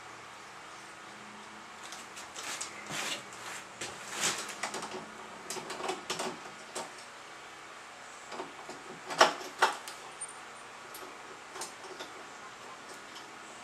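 Clicks and knocks of door lock hardware being handled and fitted into a door, irregular and bunched in the first half, with two sharper, louder clicks about two-thirds of the way through.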